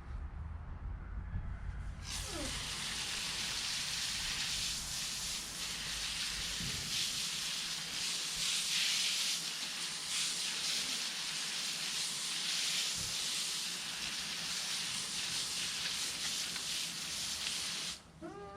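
Steady hiss of water spraying from a garden hose nozzle, switched on about two seconds in and cut off just before the end.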